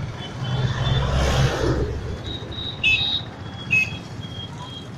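Street traffic: a passing vehicle's rumble swells about a second in and fades, followed by a few faint, short high-pitched beeps.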